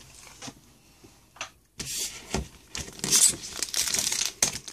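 Foil Pokémon XY booster pack wrapper crinkling and crackling in the hands. It starts about two seconds in, after a quieter moment, as a run of quick crackles.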